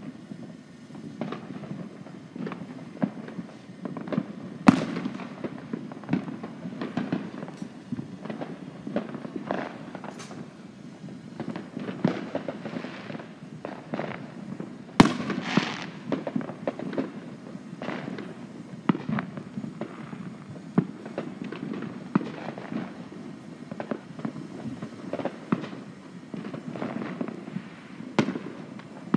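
Fireworks going off all around: many scattered bangs and pops at irregular intervals, with two louder bangs about 5 seconds and 15 seconds in, the second followed by a crackling fizz.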